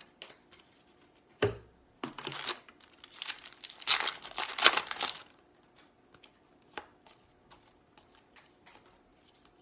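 Wrapper of a 2017 Topps Update baseball card pack being torn open and crinkled, loudest about four to five seconds in. It follows a single thump near the start, and a few faint ticks come after it.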